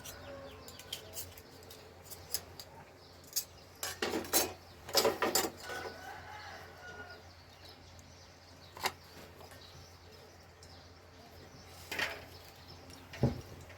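Spoons clinking and tapping against bowls during a meal of noodle soup: a few scattered, short clinks, some in quick clusters.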